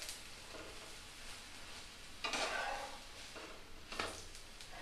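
Oil sizzling quietly under a dosa frying in a non-stick pan. A flat spatula scrapes the pan surface about two seconds in and knocks against it once near the end as it slides under the dosa to lift it.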